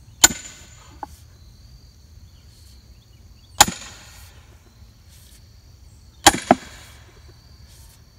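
A 10-pound steel sledgehammer striking the steel head of a diamond splitting wedge driven into a large log round: three sharp steel-on-steel clangs about three seconds apart, each with a short high ring, the third followed at once by a second knock.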